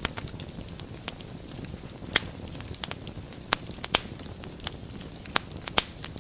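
Wood fire burning in a fireplace: a steady low rumble and hiss of the flames with irregular sharp crackles and pops of burning wood, a few of them louder.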